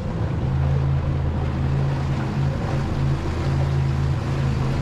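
Small outboard motor on a dinghy running at a steady speed, a low even hum.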